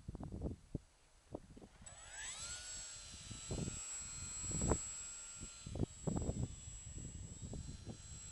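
Gusts of strong wind buffet the microphone. About two seconds in, the electric motors of a small remote-controlled aircraft spin up with a quickly rising whine, then hold a steady high whine.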